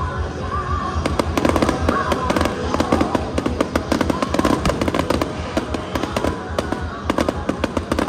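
Fireworks crackling and popping in quick succession, starting about a second in, over loud show music.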